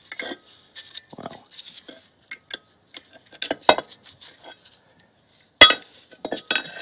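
Light metallic clinks and taps, scattered and irregular, from handling a removed Mercedes M112 V6 aluminium water pump. The sharpest knock comes a little past halfway.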